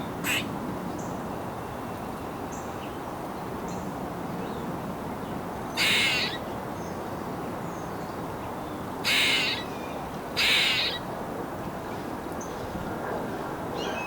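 Eastern gray squirrel giving harsh, squeaky calls: a short one right at the start, then three longer ones of about half a second each, the last two close together.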